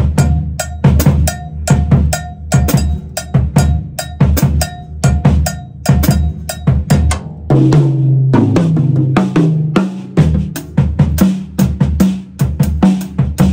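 Drum kit playing a samba groove: kick drum pulsing like a surdo, with hi-hat and cowbell on top. Past the middle the kick pulse drops back and ringing lower drum tones take over briefly before the steady groove returns.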